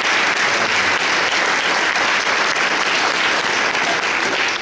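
An audience applauding steadily, beginning to die away right at the end.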